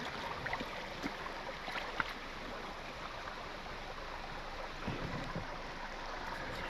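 Mountain stream running steadily, with scattered small clicks and a few soft knocks about five seconds in.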